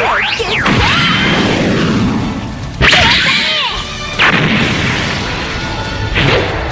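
Mobile Suit Gundam–style anime battle sound effects: a fast rising and falling sweep near the start, then sudden crashing impacts about three and four seconds in, with further sweeping whooshes.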